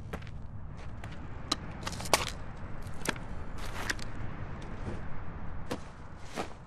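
Sound-effects track: a steady low rumble with irregular sharp clicks and snaps, about two a second, the loudest about two seconds in.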